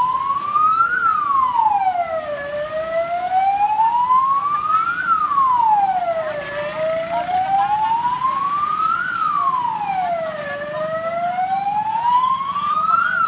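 Ambulance siren wailing in a slow cycle: the tone rises over about three seconds, then falls more quickly, repeating about every four seconds.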